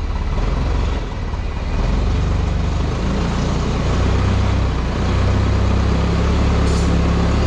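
Forklift engine running under load, pulling on a heavy cast-iron grinder to drag it across the floor. The engine note steps up about two seconds in and then holds steady.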